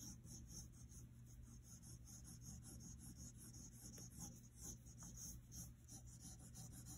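Faint scratching of a graphite pencil on paper in quick, repeated short strokes, about three or four a second: strands of hair being sketched.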